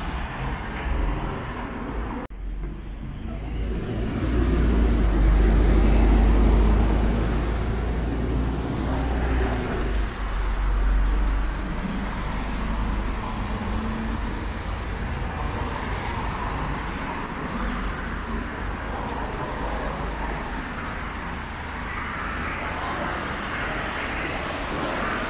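Road traffic at a city intersection: cars running past steadily. A deep rumble swells from about four seconds in and fades by about eleven seconds, a heavier vehicle passing close.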